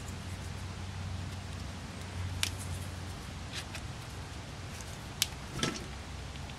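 A few light clicks and ticks from a small spring and retaining clip handled and fitted on a carburetor's accelerator pump, the sharpest about five seconds in, over a steady low hum.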